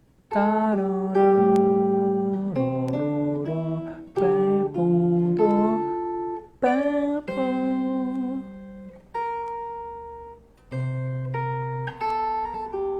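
Guitar playing a melody with only the bass notes of the chords beneath it: unhurried plucked notes left to ring, a few of them sliding into pitch.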